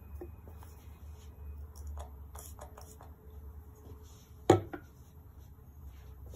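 Small objects being handled: a few light clicks and taps, then one sharp knock about two-thirds of the way through, over a steady low hum.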